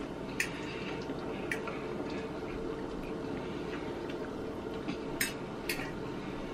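A metal fork clinks lightly against a dish about four times as food is picked up, over a steady background hum.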